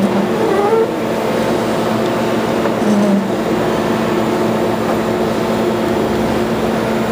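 Processing machinery running steadily, a slotted metal drum screen with sugary water and sawdust washing through it: an even mechanical noise over a constant low hum.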